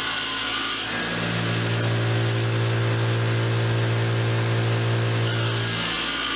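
Motor-driven wire wheel running steadily, scrubbing grime off a bench-vise part, with a harsh scratching hiss where the part is pressed into the wire at the start and again about five seconds in.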